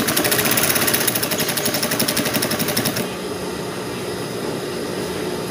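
Sewing machine stitching a seam in a rapid, even clatter for about three seconds, then stopping, with a steady hum underneath.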